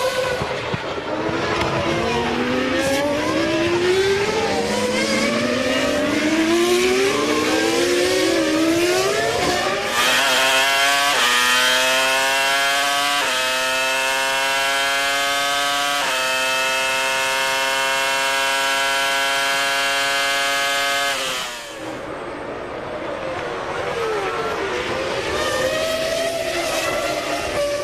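Formula 1 cars' V10 engines running hard on a wet track, several cars' notes rising and crossing as they accelerate past. From about ten seconds in, a single engine holds a high, steady note with a few sudden steps in pitch at the gear changes. This cuts off abruptly about twenty-one seconds in, and mixed passing engines follow.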